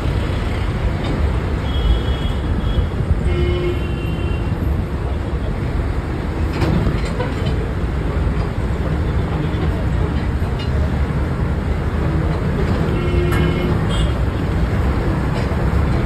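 Road rumble and engine noise inside a moving vehicle heard through an open window: a steady low drone. Brief high-pitched tones rise over it about two to four seconds in and again near the end.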